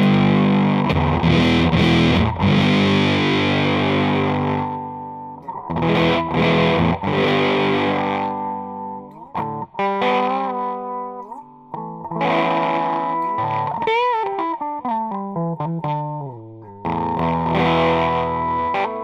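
Electric guitar's bridge humbucker through a clone of the Earth Sound Research Graphic Fuzz pedal into a Fender Hot Rod Deluxe amp, with the guitar's volume rolled back to show how the fuzz cleans up. Ringing fuzzed chords, then broken-up phrases with gaps and bent, wavering single notes around the middle, and chords again near the end.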